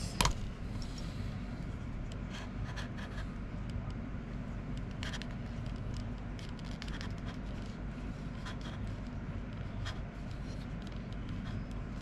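Hands handling a Zhiyun Crane M3 gimbal and its mounted camera while balancing them, giving scattered small clicks and scrapes with a sharper click just after the start, over a steady low hum.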